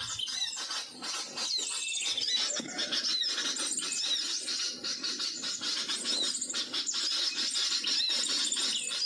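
Small birds, flowerpeckers among them, squeaking and chirping: many short, high-pitched rising-and-falling notes over a rustling of handling or leaves.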